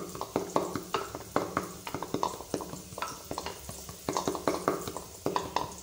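A wooden pestle pounding and grinding groundnuts in a wooden mortar: a quick, uneven run of knocks, several a second, with the scrape of crushed nuts between strokes.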